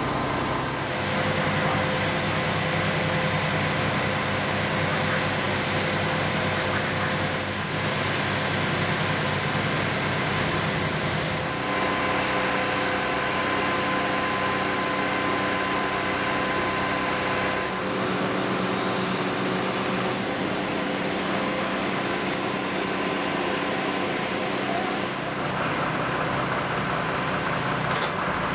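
Fire trucks' diesel engines running steadily, with steady high whining tones over the engine note. The mix changes abruptly several times.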